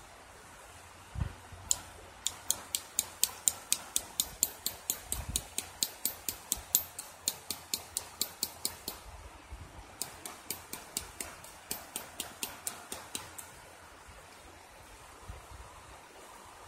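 A rapid series of sharp, high-pitched clicks, about three a second, running for several seconds, pausing about ten seconds in, then going on for a few seconds more, over the steady rush of a river.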